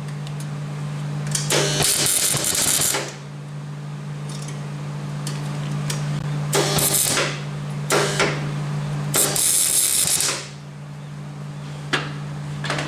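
Electric welder tack-welding an exhaust pipe in place: about four short bursts of crackling sizzle as the arc is struck, over a steady low hum.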